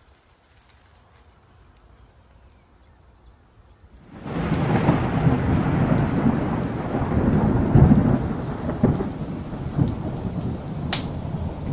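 Thunderstorm sound: thunder rolling over steady rain, coming in suddenly about four seconds in after a few nearly quiet seconds.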